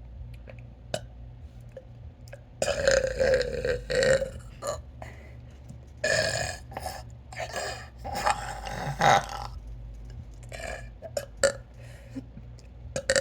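A person's deliberately forced burps: three long, loud burps a couple of seconds apart, followed by a few short, quieter ones.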